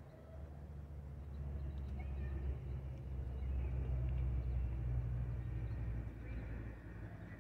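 Metrolink EMD F125 diesel locomotive approaching from a distance: a low, steady engine rumble that grows louder, then eases a little near the end.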